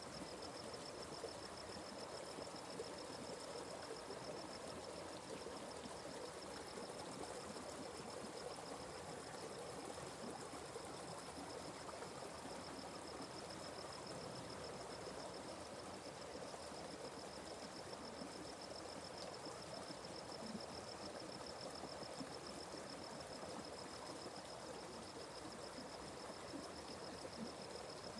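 Forest creek flowing, an even, steady rush of water, with a continuous high-pitched insect trill over it.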